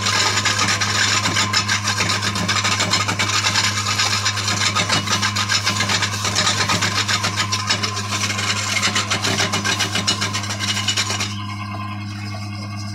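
Wood being worked on a powered lathe: a steady motor hum under a dense rasping of a tool against the spinning wood. The rasping stops about eleven seconds in, leaving the motor hum.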